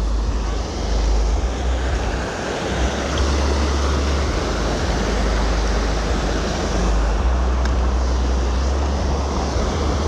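Steady rush of churning white water, with wind rumbling on the microphone.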